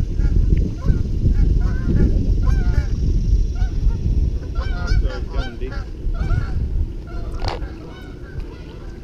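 Repeated short honking bird calls over heavy wind rumble on the microphone, with one sharp splash near the end.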